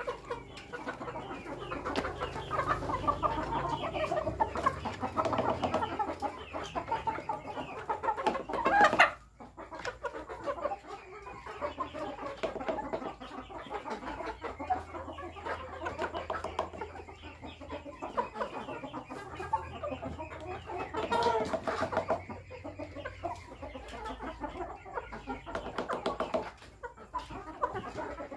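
A flock of chickens clucking busily while feeding at a wooden trough, with many quick pecking taps. A sudden loud burst about a third of the way through cuts off sharply.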